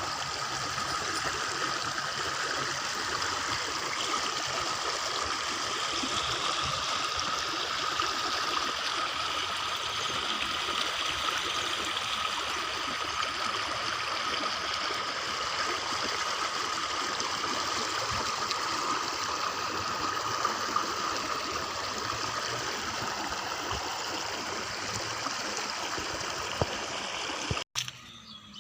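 Steady rush of floodwater flowing out of a flooded rice paddy as it is drained, cutting off abruptly near the end.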